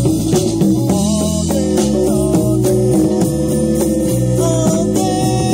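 Background music: a slow blues-soul song with sustained organ chords and a sliding guitar lead.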